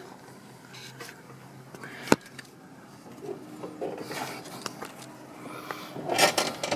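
Hand work on a riding mower's deck hanger linkage as a pin is taken off. There is a sharp click about two seconds in, light knocks and handling noise, and a scraping rustle near the end.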